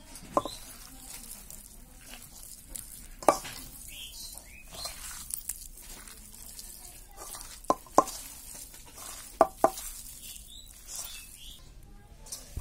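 A bare hand squishing and mashing boiled potatoes with fried onion in a pan for alu bhorta, a soft wet rustle. Several sharp clicks stand out, one near the start, one at about 3 seconds, then two quick pairs near 8 and 9.5 seconds.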